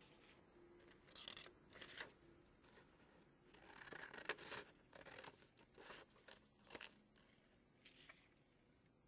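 Scissors cutting through a sheet of paper, with paper sheets rustling and sliding as they are handled. The sound is faint: a string of short snips and rustles, loudest a little before the middle.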